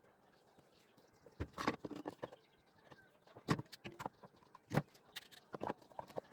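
Wooden pieces knocking and clattering as they are handled and set down: a cluster of sharp knocks about a second and a half in, then single knocks every second or so.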